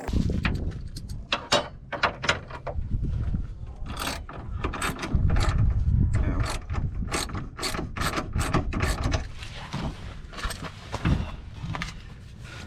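Socket ratchet clicking in uneven runs of quick strokes as bolts for a car's rear subframe brace are turned, with a low rumble underneath.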